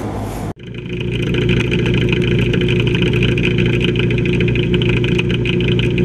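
Outdoor HVAC unit running: a steady mechanical hum from its compressor and condenser fan. It starts abruptly about half a second in, after a brief cut-out.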